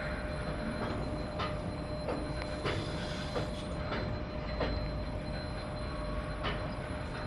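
Moscow Monorail train passing on its elevated beam: a steady running noise with a thin, steady whine, broken by irregular knocks and clicks.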